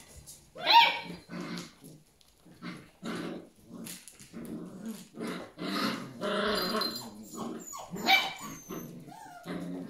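Collie puppies growling and yipping in play: a string of short growls and grumbles, with a sharp high yip about a second in and another near the end.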